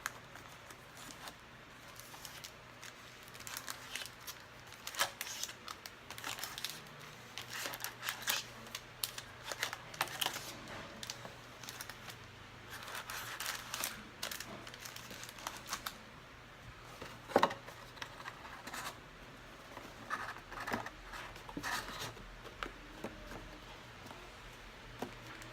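Plastic and foil packaging of a trading-card hobby box and its packs being handled and torn open: irregular crinkling and rustling with sharp tearing crackles.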